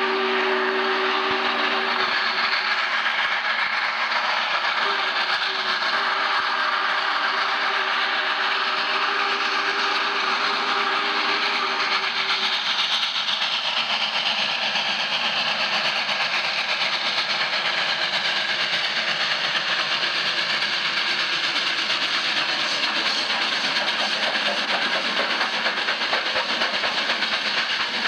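Union Pacific 3985's steam whistle blowing a long multi-toned blast that breaks briefly about four seconds in, then sounds again until about twelve seconds in. The running noise of the approaching 4-6-6-4 Challenger steam locomotive follows and grows as it draws close.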